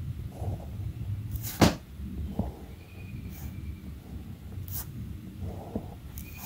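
Fine-tip Sharpie pen drawing on paper: short scratchy strokes and small ticks as the tip lifts and touches down, with one sharp tap about a second and a half in.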